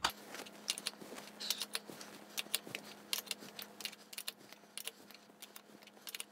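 Ratcheting wrench clicking in short irregular runs as it turns the nut of a cam bearing puller, jacking the inner cam bearing out of a Harley-Davidson Milwaukee-Eight engine case.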